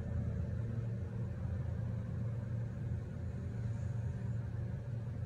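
A steady low hum, even throughout, with no clicks or toy sounds standing out.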